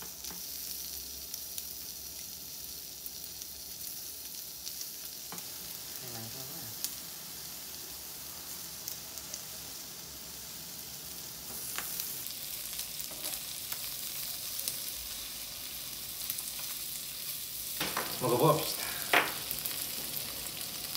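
Freshwater eel fillets sizzling steadily on a slotted grill plate over a portable gas stove, with a few sharp clicks here and there.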